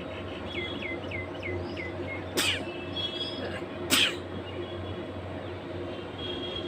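A woman sneezes twice, about a second and a half apart, each sneeze a short sharp burst. Birds chirp in the background, with a quick run of five falling chirps before the first sneeze, over a steady hum.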